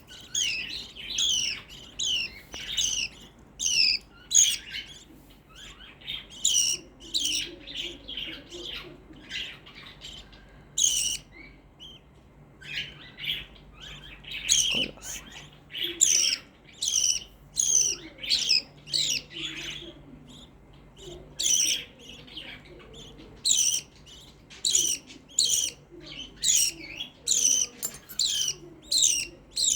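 Small pet parrot giving loud, shrill, repeated chirping calls, each a quick downward-sweeping note, about one or two a second, with a couple of short pauses.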